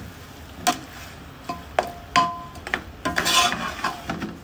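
A metal spoon stirring and knocking against a metal cooking pot: a series of irregular clinks, several of which ring briefly.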